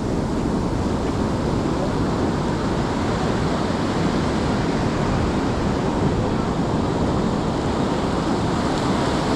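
Ocean surf washing onto the beach in a steady rush.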